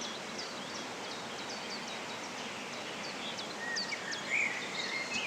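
Birds giving short, sharp high calls, a couple a second, over a steady background hiss. A lower, longer note joins around four seconds in.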